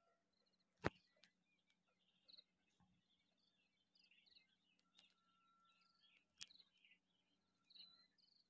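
Near silence: faint bird chirping, broken by two sharp clicks, one about a second in and one past six seconds.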